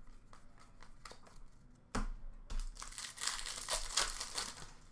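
Crinkling and rustling of a foil trading-card pack wrapper and cards being handled. It is faint at first and gets louder with several sharp crackles from about two seconds in.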